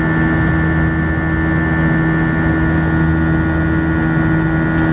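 Airbus A320 cabin in flight: the steady drone of its twin turbofan engines and the airflow past the fuselage, heard from a seat over the wing, with a constant low hum and a steady high whine.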